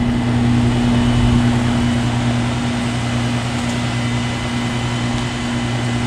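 Goodman GSH13 heat pump outdoor units running in heat mode: a steady low compressor hum under the even rush of the condenser fans blowing air through the coils.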